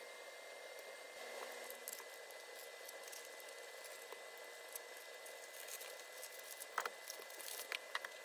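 Faint rustling and handling noise from jewelry orders being packed by hand, with a few light clicks near the end.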